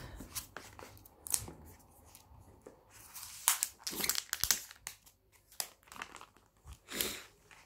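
Thin plastic protective sleeve of a smartphone and the cardboard box packaging crinkling and rustling as they are handled, in a run of irregular short rustles, loudest about three and a half to four and a half seconds in and again near seven seconds.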